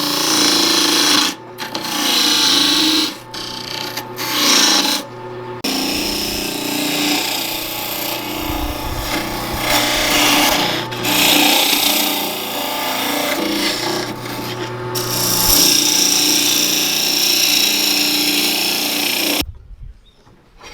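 Wood lathe turning a cedar bowl blank, a gouge cutting the spinning wood with a continuous scraping, rasping sound over the lathe's motor hum. The cut breaks off briefly several times, and the sound stops about a second before the end.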